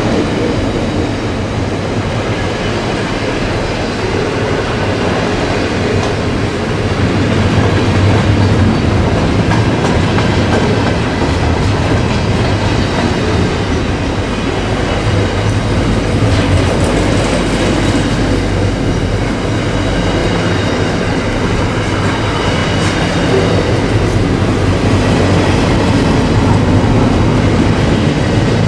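Container wagons of a long intermodal freight train rolling steadily past at close range: a continuous loud rumble and clatter of wheels on the rails.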